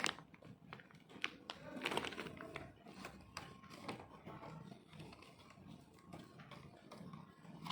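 Scattered light clicks and taps with some soft rustling, the sound of small parts and packaging being handled.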